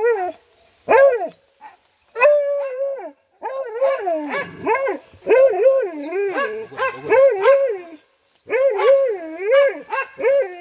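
Hunting dogs bawling at a burrow in repeated wavering, howl-like bays, in bouts broken by short pauses. The hunters take the dogs' bawling at the hole as the sign that a lappe (paca) is holed up inside.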